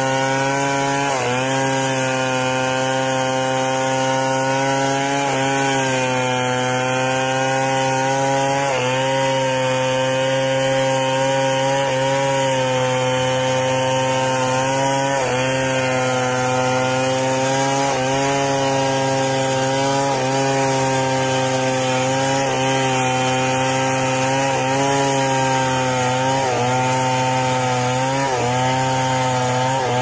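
Stihl 070 two-stroke chainsaw cutting into a felled mahogany log under load, its engine running steadily and dipping briefly in pitch every few seconds as the chain bites into the wood.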